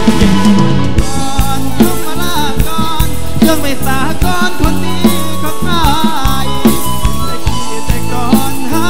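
Thai mor lam band music: a steady drum beat and bass under a lead melody that bends in pitch.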